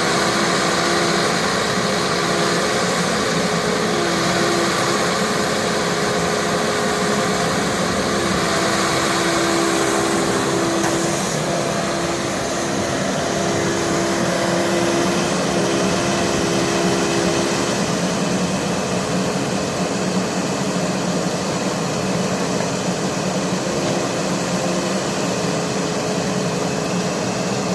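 Excavator's diesel engine running steadily, with a whine that comes and goes over it.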